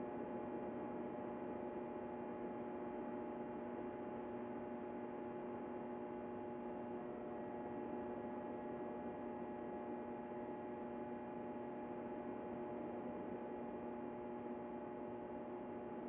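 Steady, unchanging hum of several held tones over a soft hiss.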